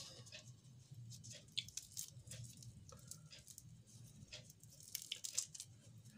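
Faint small crackles and clicks, scattered and irregular, of fried shrimp being peeled by hand, the shells cracking and tearing.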